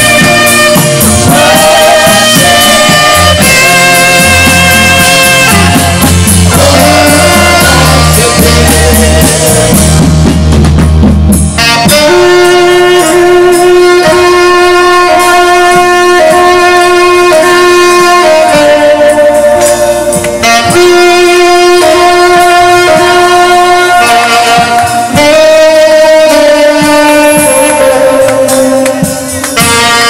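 Saxophone playing a melody with vibrato over a deep bass accompaniment. About eleven seconds in the bass drops away, and the saxophone carries on alone in long held notes.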